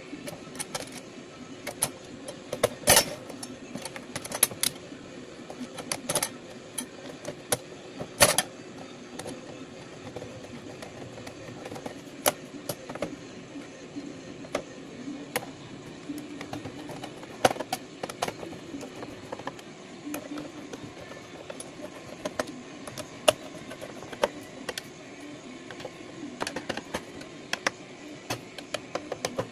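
Irregular metallic clicks, clinks and knocks of steel wall-mount bracket arms, screws and washers being handled and screwed onto the back of a monitor, with a few louder knocks, over a steady low background hum.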